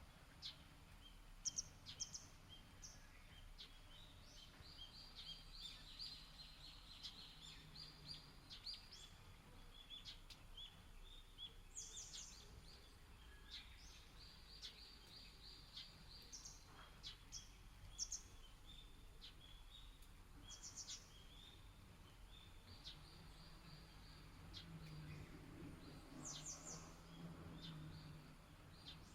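Small birds chirping and trilling faintly in repeated short phrases over a soft, steady background hiss. A low hum swells near the end.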